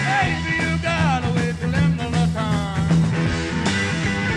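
Rock band playing live, without vocals: electric guitar, bass guitar and drums, with a lead line of sliding, bending notes over a steady bass pattern.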